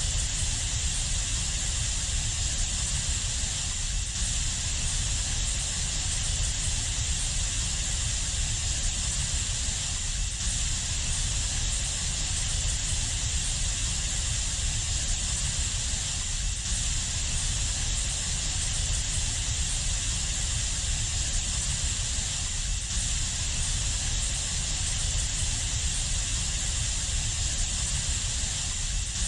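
Steady ambient 'space sound' drone: an unchanging noise with a deep rumble underneath and a bright hiss on top, presented as the sound of Saturn's moon Siarnaq.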